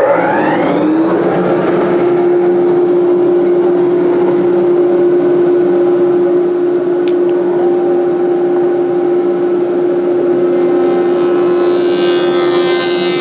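Woodworking jointer's motor and cutterhead spinning up, rising in pitch through the first second, then running at a steady hum. Near the end a rougher, higher cutting sound joins as a board is face-jointed across the cutterhead.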